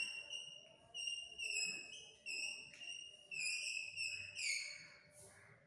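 Chalk squeaking on a blackboard while writing: a run of short, high-pitched squeals, one per stroke, with small slides in pitch, stopping about five seconds in.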